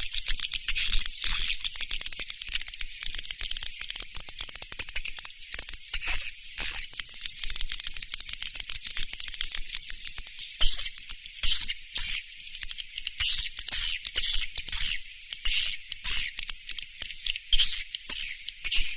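Edible-nest swiftlet call track: dense, high-pitched chattering twitters and clicks that go on without a break, the kind of call recording played to lure swiftlets into a nesting house.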